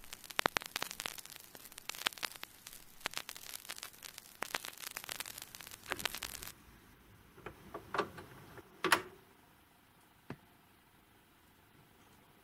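Vinyl record surface noise from a stylus riding the groove with no music: dense crackle and pops. About six and a half seconds in the crackle stops suddenly, leaving a low hiss with a few separate sharper clicks, the loudest about nine seconds in.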